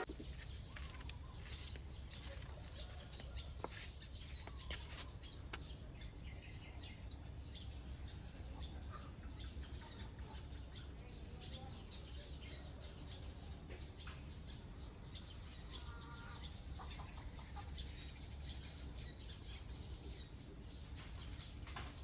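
Outdoor ambience: birds chirping and calling over a steady low rumble, with a few faint sharp clicks in the first few seconds.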